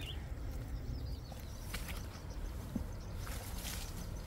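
Steady low outdoor rumble with faint rustling and a few small clicks as a nylon cast net is gathered up by hand.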